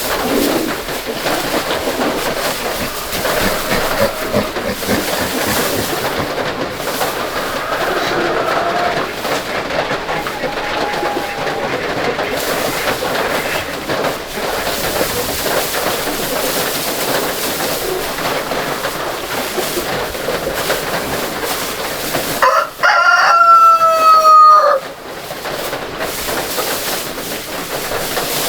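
A rooster crows once, loud and about two seconds long, near the end, over a steady hiss. Fainter fowl calls come earlier.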